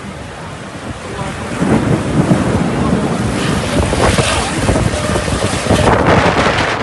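Strong storm wind buffeting the microphone, a loud, gusty rushing noise that builds about a second and a half in.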